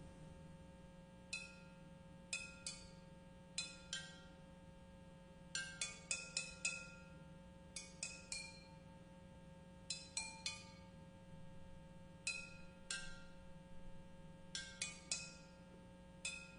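Four terracotta flower pots struck with thin sticks: sparse, clear pitched pings, singly and in quick groups of two or three, each ringing briefly.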